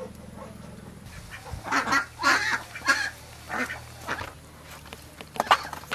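Ducks quacking: a run of short, harsh calls about two seconds in, and a couple more near the end.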